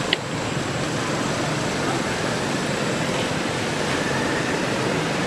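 Steady outdoor background hiss, with one short high squeak just after the start.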